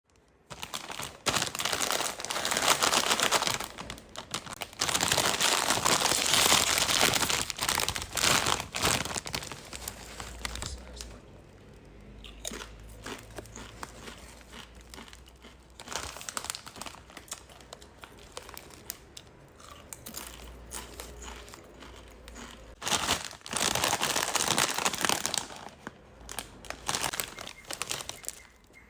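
A Kettle Chips crisp packet being crinkled and torn open, rustling in long loud bursts, with a quieter stretch of scattered crackles and crunches in between.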